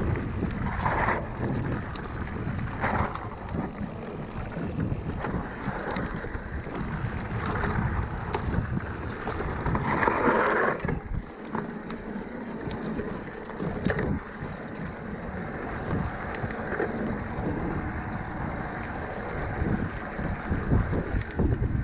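Wind buffeting a handlebar camera's microphone over the rumble and rattle of a mountain bike rolling along a dirt trail, with a few louder rushes, the loudest about ten seconds in.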